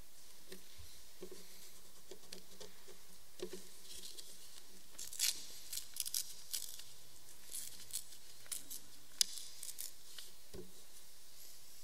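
Scattered light footsteps and clothing rustles of people walking across a hard floor in a small room: soft knocks and sharp little clicks over a steady hiss, busiest in the middle, with the sharpest click about nine seconds in.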